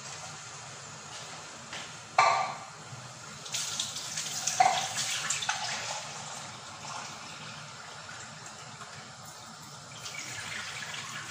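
Water running from a kitchen tap, with a sharp knock about two seconds in and a louder, uneven stretch of running water a little later.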